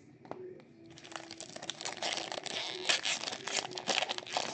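Crinkling and tearing of a trading-card pack wrapper being opened by hand, starting about a second in and getting louder.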